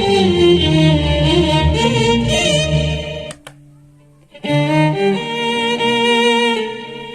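Violin played through a Zoom G1Xon multi-effects processor: a melodic phrase with vibrato and slides over a lower effect voice. The playing breaks off about three seconds in with a click, leaving a faint held tone, and picks up again about a second later.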